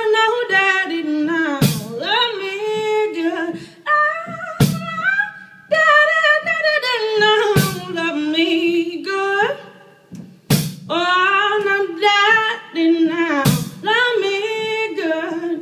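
A woman singing a slow song, with long runs sliding up and down between held notes, over a sharp percussive hit about every three seconds.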